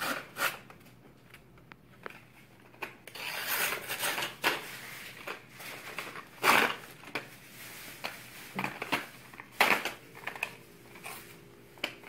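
Cardboard and paper packaging being torn open by hand, with irregular crinkling and rustling and a few sharp, louder rips.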